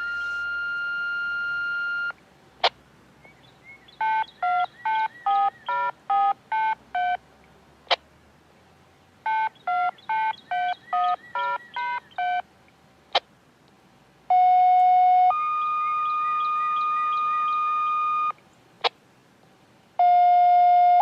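Siren activation tones sent out by the county. First a steady tone ends about two seconds in. Then come two quick strings of about ten touch-tone (DTMF) beeps each, then a two-tone page: a short lower tone, followed by a higher tone held about three seconds. A new two-tone page starts near the end, with sharp clicks between the sequences. The tones were altered for the upload so they cannot trigger real sirens.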